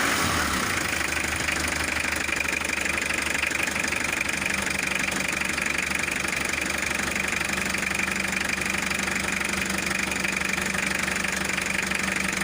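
Diesel engine idling steadily just after catching on the first crank with the glow-plug heater used.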